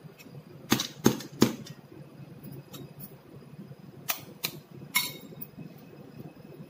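Eggs tapped sharply against a hard edge to crack their shells: three quick taps, then two more a few seconds later, and a clink with a short ring about five seconds in.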